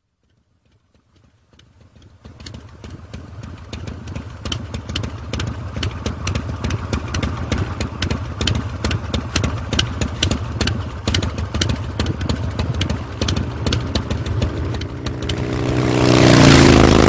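Motorcycle engine idling, with a steady low note and a rapid, uneven clatter of sharp ticks over it. Near the end it revs up and grows louder.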